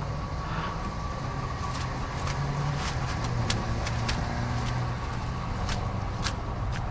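A vehicle engine running steadily with a low hum, with scattered light clicks and taps over it.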